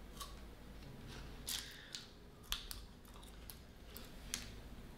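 Faint crinkling and tearing of a Kit Kat's plastic wrapper as it is opened, in a few short crisp bursts, the loudest about a second and a half and two and a half seconds in.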